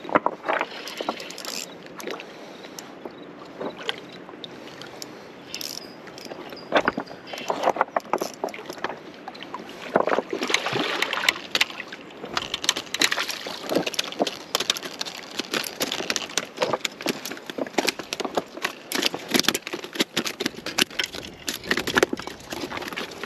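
A hooked American shad being reeled in and landed on a rocky bank: a spinning reel cranking, water splashing, and a run of sharp clicks and knocks on the rocks as the fish comes ashore near the end.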